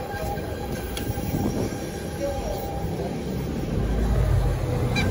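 Steady low rumble of wind and tyre noise from a bicycle in motion, growing louder near the end.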